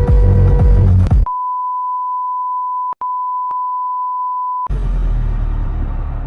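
A steady, high, pure beep tone held for about three and a half seconds, with a brief break near its middle. Before it, electronic dance music with a heavy beat plays and then cuts off abruptly. After it comes a short, quieter stretch of noise.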